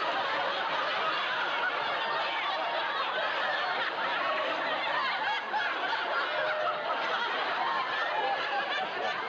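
Studio audience laughing steadily throughout.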